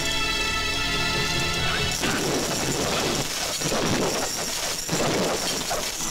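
Film fight soundtrack: a held music chord for about two seconds, then a dense run of crashing and clattering hit effects over the music.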